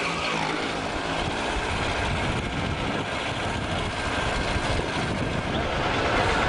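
Motorcycle ride heard from the saddle: the bike's engine running under steady wind and road noise, with traffic around it.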